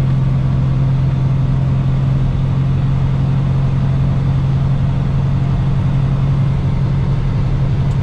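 Heavily loaded diesel semi truck, grossing about 80,000 pounds, heard from inside the cab: a constant low engine drone over road noise as the engine pulls hard to bring the truck up to highway speed.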